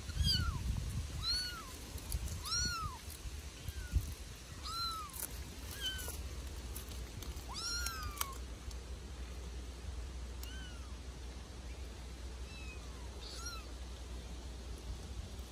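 Bengal kittens mewing again and again: about nine short, high-pitched mews that each rise and fall in pitch. They come close together for the first eight seconds or so, then thin out.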